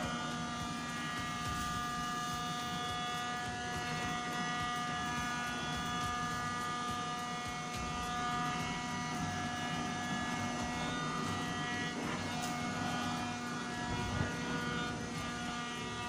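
Silvercrest cordless handheld wet-and-dry vacuum cleaner running steadily, its small motor giving an even whine, as it sucks coarse cat litter off a tiled floor. A single sharp tick near the end.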